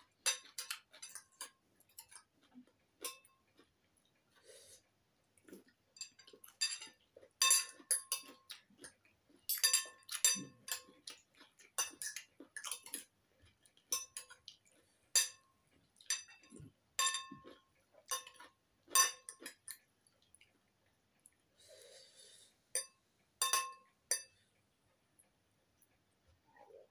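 Metal spoon and fork clinking and scraping against a ceramic bowl of noodles: many irregular sharp clinks, each with a short ring, with a brief soft rushing noise about three-quarters of the way through.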